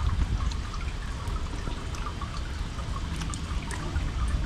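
Water running from the bamboo spouts of a Shinto shrine purification basin (chōzuya), trickling and splashing over hands being rinsed in the stream.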